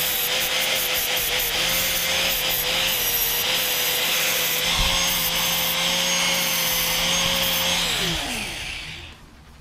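Handheld electric angle grinder grinding a 16-gauge steel plate, a steady motor whine under the harsh noise of the disc on the metal. About eight seconds in it is switched off and its whine falls in pitch as it spins down.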